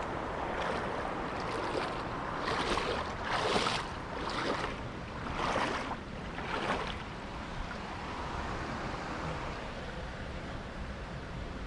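Water running steadily over a small creek spillway, with about five swishing footsteps a second apart in the middle as someone moves along the creek.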